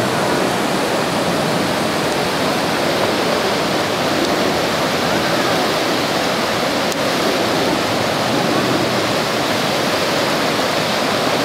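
Floodwater of an overflowing creek rushing, a loud, steady roar of water.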